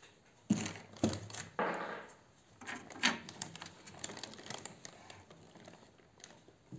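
Hard disk drive being handled and set down into a DVR's sheet-metal case: four sharp knocks and clicks in the first three seconds, one with a brief rustle, then lighter clicking and rattling of parts and cables.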